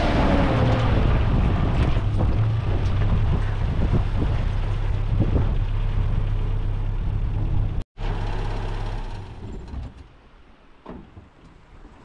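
A motor vehicle running steadily, with road noise and a low engine hum. The sound drops out briefly about eight seconds in, then fades away to quiet with a few small clicks near the end.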